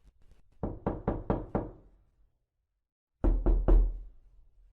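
Knock-knock sound effect: a quick run of five sharp knocks, then after a short pause three louder knocks, with a few faint taps just before the first run.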